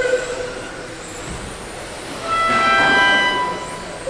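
High electric whine of several 1/10 electric touring cars with 13.5-turn brushless motors racing on a carpet track, with tyre noise underneath. About two seconds in, a louder cluster of high whines at several pitches lasts for about a second.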